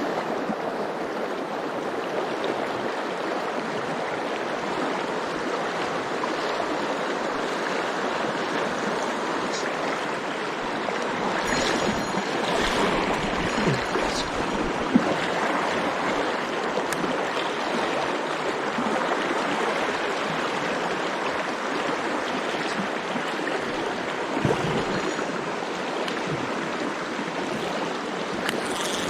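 Mountain stream running steadily, with a few light clicks near the middle.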